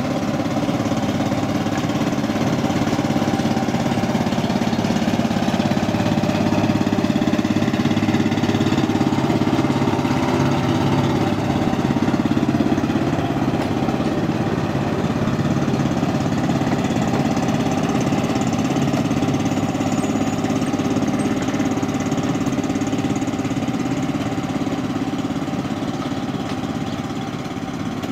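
Miniature railway diesel-outline locomotive's engine running steadily as it hauls the passenger train, heard from a carriage behind it, a little louder in the middle and easing near the end.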